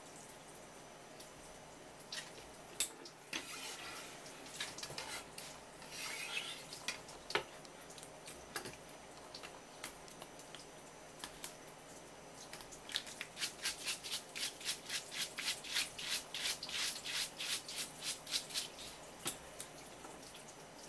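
A thin stream of tap water running onto a swimming crab and a wooden cutting board, with scattered clicks and scrapes of crab shell being handled and rinsed. About two-thirds of the way through, a quick regular run of scraping strokes starts, about three a second, as the crab body is scraped clean.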